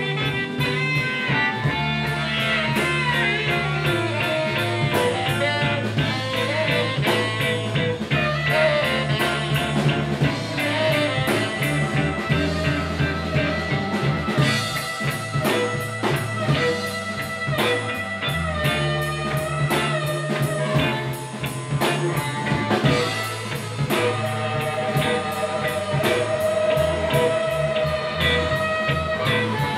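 Live West Side Chicago blues band playing an instrumental break: electric guitar, bass and drum kit with a lead line soloing over them.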